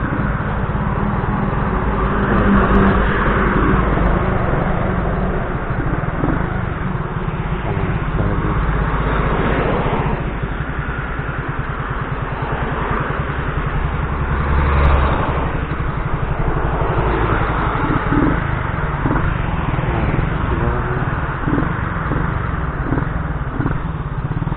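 Benzer Yankee 50cc moped's single-cylinder four-stroke 139FMB engine running while the moped is ridden, swelling in loudness a few times, with a steady rushing noise over it.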